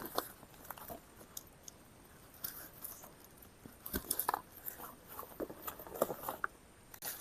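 Scattered crunches, rustles and sharp clicks of camp gear being handled, sparse at first and coming more often about halfway through.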